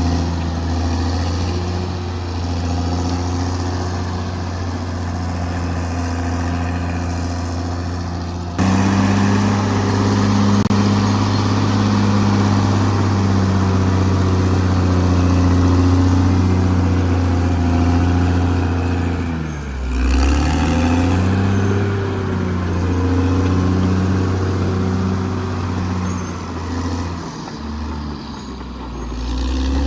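Caterpillar D6R XL bulldozer's diesel engine running steadily at working speed. The sound changes abruptly about eight seconds in, and the engine pitch dips briefly and recovers about twenty seconds in.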